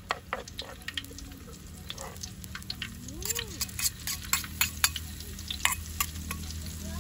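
Clams being stir-fried in a hot pan: a spatula stirring the shells, which clatter in quick sharp clicks over the sizzle of the frying.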